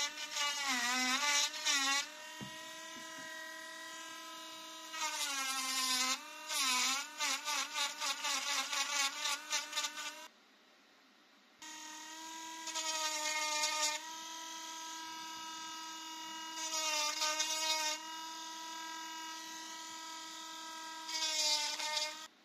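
A handheld engraver pen's small rotary motor whining steadily as its spinning bit engraves a wooden knife handle. In several stretches it grows louder and wavers in pitch as the bit bites into the wood. It cuts out about ten seconds in and starts again a second or so later.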